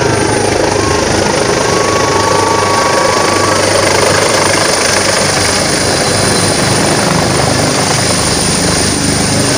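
Helicopter descending to land and hovering low over the helipad: loud, steady rotor and engine noise with a thin high whine above it.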